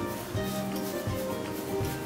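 Background music: held notes over a light, soft beat.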